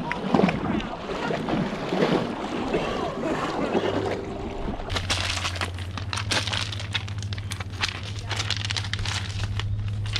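Lake water splashing and sloshing around a wading horse's legs, with wind on the microphone. About five seconds in this gives way to a run of sharp clicks and crackles over a low steady hum.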